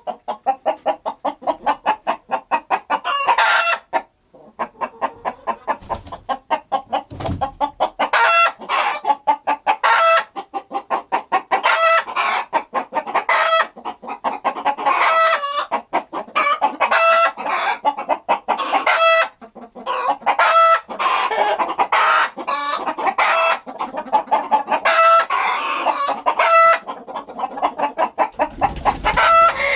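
Chickens clucking in rapid, overlapping runs, with short higher-pitched calls standing out every second or two and a brief lull about four seconds in.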